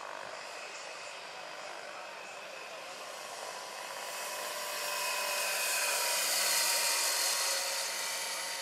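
Large electric RC scale helicopter, a Vario SA-341/342 Gazelle with a 2.36 m rotor, flying past: a steady high-pitched electric-drive whine with rotor noise. It grows louder from about four seconds in, peaks around six to seven seconds, then fades as the model passes.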